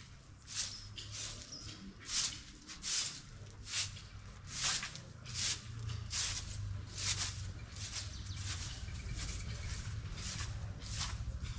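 A broom sweeping paved ground: about a dozen quick, raspy swishes at roughly one a second, softer toward the end, over a steady low rumble.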